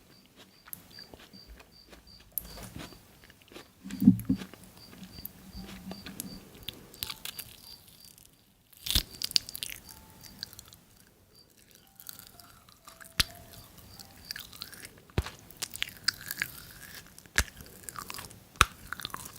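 Someone chewing and biting into crunchy food, with scattered sharp crackles and clicks and a loud bite about four seconds in.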